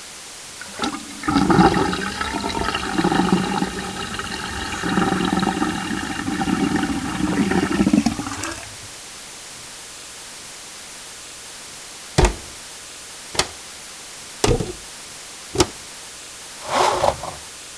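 Toilet flushing, a rushing of water that lasts about seven seconds and stops. Then four separate sharp clicks about a second apart, and a short noise near the end.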